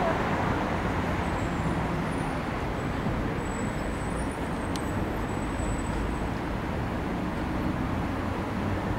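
Steady background noise of road traffic, an even city hum with no music.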